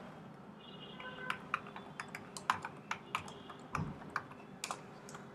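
Typing on a computer keyboard: a run of quick key clicks starting about a second in and lasting about four seconds.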